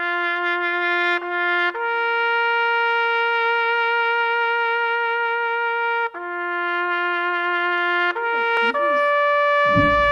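Intro music of long held horn-like notes. The notes step up, drop back down, and then rise to the highest note, which is held from about nine seconds in. A low rumble comes in underneath near the end.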